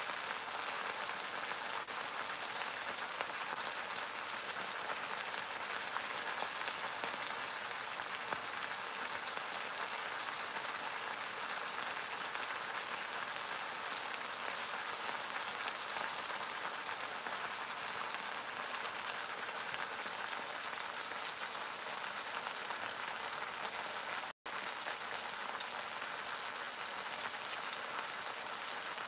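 Bacon-wrapped pork tenderloin sizzling steadily in hot oil in a steel pan, a dense, even crackle of frying fat. It cuts out for an instant near the end.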